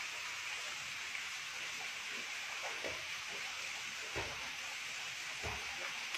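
Waterfall pouring steadily into a rock pool, with water splashing from swimmers three times in the second half.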